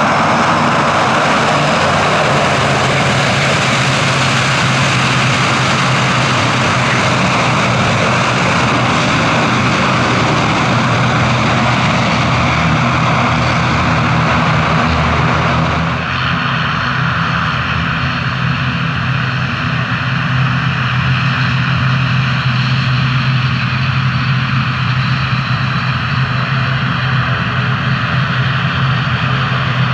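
Twin turboprop engines and propellers of an ATR 42 running on the ground after landing: a steady low propeller hum under a broad rushing noise. About halfway through, the rushing noise drops suddenly, leaving the propeller hum and a higher engine whine.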